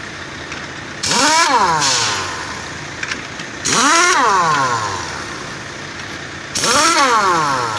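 Pneumatic impact wrench run in three short bursts on the truck's wheel nuts: each time a hiss of air and a whine that spins up fast, then winds down as the trigger is let go, while two jammed nuts are worked loose.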